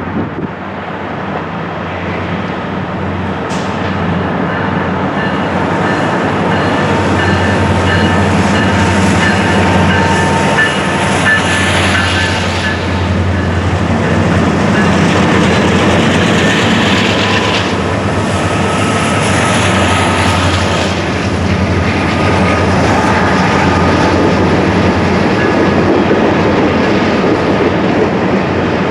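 Freight train of diesel-electric locomotives working hard up a grade, with engines running under load and a heavy rolling rumble. It grows louder over the first several seconds, then stays loud as it passes, with wheels clicking over rail joints and thin, high wheel squeal.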